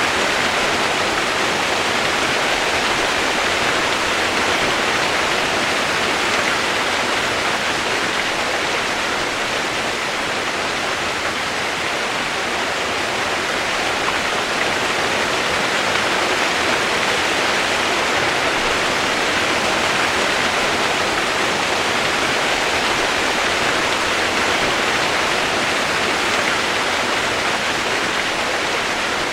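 Steady rain noise used as white noise: a constant, even hiss with no separate drops, thunder or changes.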